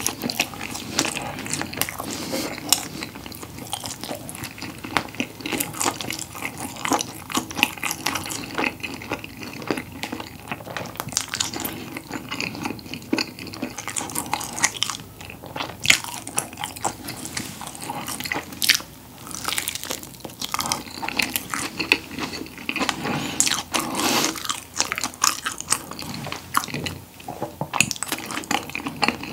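Close-miked chewing and biting of a whole combination pizza with cream-cheese crust, rolled up into one log: a dense, uneven run of short sharp clicks and smacks from the mouth and the bread.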